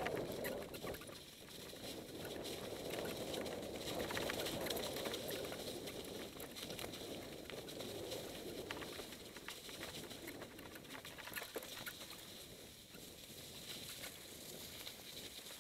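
Mountain bike riding fast downhill over dry fallen leaves and loose stones: the tyres crunch and the bike rattles in a steady run of small clicks and crackles.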